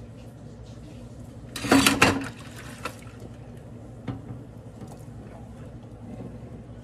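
Hand-washing dishes in a stainless steel sink: a short splash of water about a second and a half in, then two light knocks of a ceramic mug and plastic container, and quiet sponge scrubbing.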